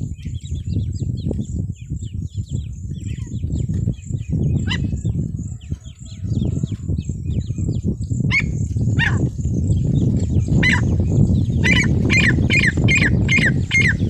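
Female francolin (teetar) calling. Faint quick high chirps run through the first half; then, from about eight seconds in, a run of louder short calls comes faster and faster toward the end, over a steady low rumble.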